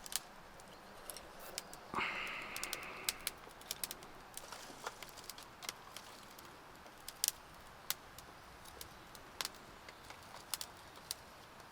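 Small newly lit campfire of fatwood and kindling crackling, with irregular sharp pops and snaps. About two seconds in, a brief scraping rustle lasting around a second.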